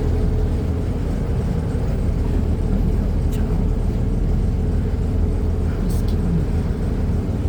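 Water taxi's motorboat engine running steadily with a low, even drone.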